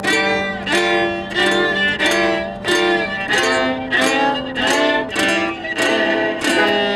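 Fiddle and acoustic guitar playing a tune together. The guitar is strummed in a steady beat, about three strums every two seconds, under held fiddle notes.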